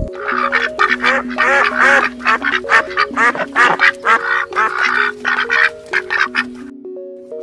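Ducks quacking in a quick, busy run of calls that stops shortly before the end, over background music.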